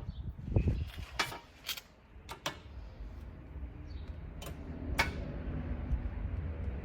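Sharp, scattered clicks and taps of stainless steel bolts, washers and hinge parts being handled and hand-started on a tube door's hinge. A low steady hum comes in underneath from about three seconds in.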